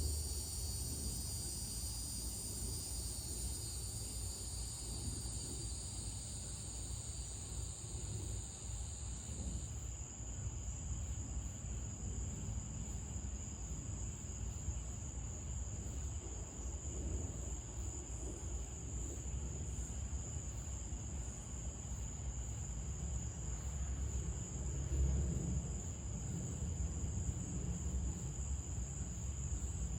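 Crickets and other night insects trilling steadily at several pitches. About ten seconds in, the higher-pitched callers stop, leaving one steady high trill. A low rumble runs underneath.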